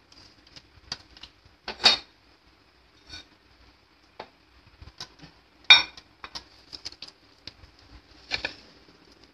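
Hand mixing a coarse vada mixture in a stainless steel bowl: scattered light clicks and taps of fingers and the bowl against steel, with louder knocks about two, six and eight and a half seconds in.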